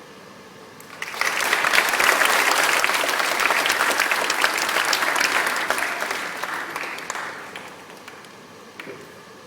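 Audience applauding. The clapping starts suddenly about a second in and dies away over the last couple of seconds.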